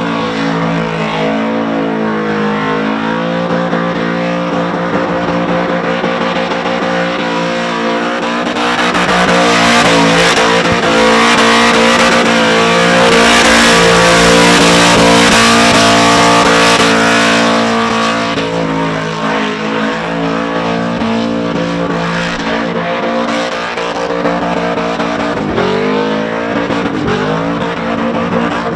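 Supercharged Holden VX Commodore engine held at high revs through a burnout, with the spinning rear tyres hissing on the pad. The tyre noise swells loudest in the middle, and near the end the revs dip and climb again several times.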